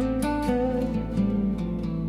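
Slow, gentle instrumental music: a few plucked guitar notes ring out over a sustained low drone.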